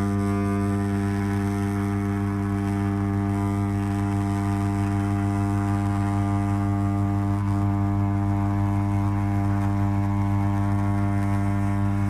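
A 1930s AEG electric tailor's scissors running, its electromagnet driving the upper blade back and forth with a loud, steady low electric buzz as it cuts through cloth.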